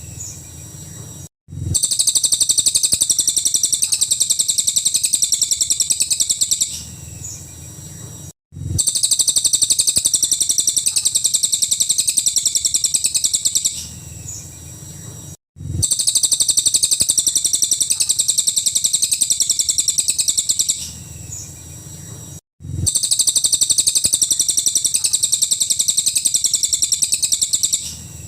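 Cililin bird song: loud bursts of rapid, high-pitched repeated notes, each lasting about five seconds. The same phrase comes round four times, about seven seconds apart, each time after a short quieter stretch and a brief cut to silence, as in a looped training recording (masteran) for songbirds.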